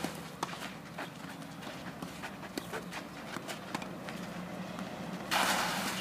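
Tennis serve on a clay court: a sharp racket-on-ball strike right at the start, then scattered light knocks of ball bounces and footsteps on the clay. A brief, loud rush of noise comes near the end.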